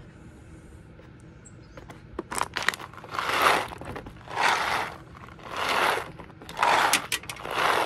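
Dry kernel corn rattling in a small plastic bottle that is shaken upside down over a plastic gallon jug, pouring into it. The shakes start about two seconds in and come about once a second.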